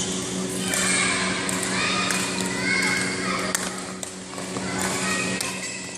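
Badminton hall during play: scattered sharp smacks of rackets hitting shuttlecocks, with children's voices and a steady low hum underneath.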